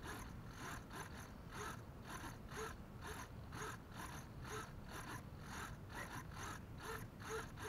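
Small hobby RC servos whirring in short repeated bursts, a few each second, as their arms sweep back and forth in response to the transmitter's signal.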